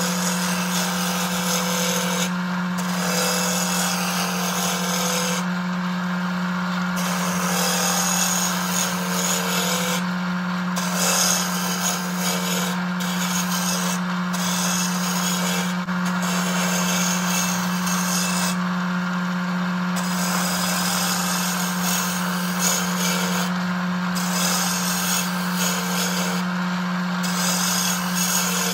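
Wood lathe running with a steady hum while a hand-held turning tool cuts a spinning wood blank, a rough shaving hiss that stops briefly several times as the tool comes off the wood.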